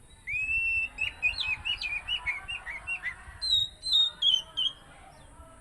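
Oriental magpie-robin singing a loud, varied phrase. It opens with a rising whistle that is held, then runs into a string of quick, short notes, and ends with a few higher, falling notes about four seconds in.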